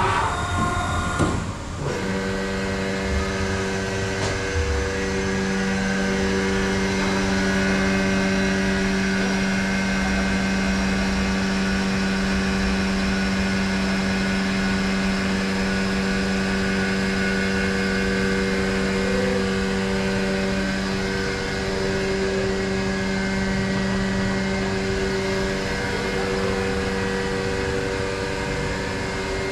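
Haas VR-9 5-axis vertical machining center running. After a short clatter, a steady hum of several fixed tones starts about two seconds in and holds while the spindle head travels and tilts.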